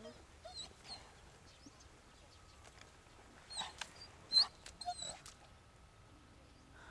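Black Russian terrier giving a few short, high-pitched whining yelps in scattered bursts, the loudest about four seconds in.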